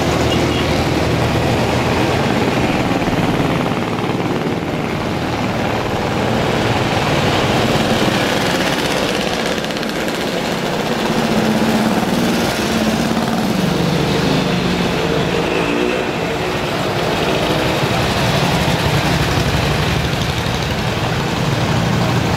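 A procession of vintage motorcycles and mopeds riding past, many small engines running at once. About halfway through, one engine note rises and falls as a bike goes by.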